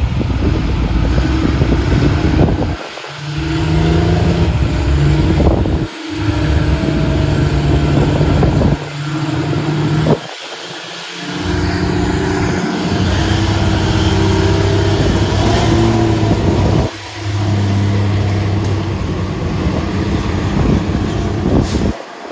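Heavy truck engine running and revving under load while pulling a stuck vehicle out, in several short stretches that each break off abruptly.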